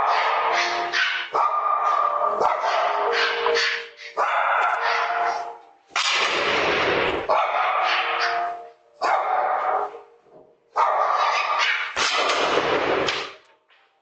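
A dog barking loudly and repeatedly, in bursts of a second or two separated by short pauses.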